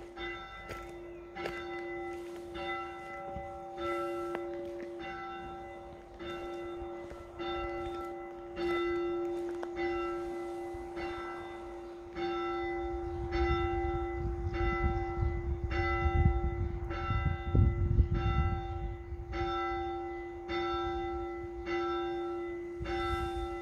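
A single church tower bell tolling at a steady pace, a little under one stroke a second, every stroke on the same note and ringing on into the next. A low rumble rises under the bell for several seconds in the middle.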